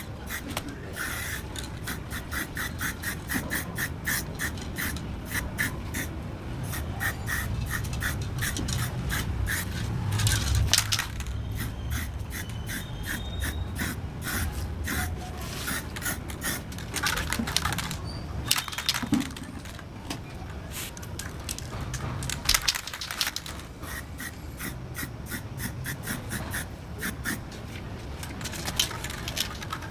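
Aerosol spray paint can hissing in many short bursts, about three or four a second, with a few longer sprays, as a coat of paint goes onto a steel car wheel.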